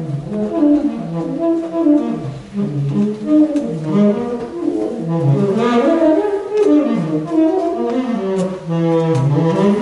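Saxophone playing a wandering line of notes that rise and fall, often sliding between pitches.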